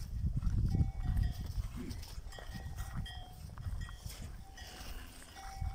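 Bells on a herd of grazing cattle clinking now and then as the cows walk through the pasture, over a low uneven rumble that is loudest in the first second or so.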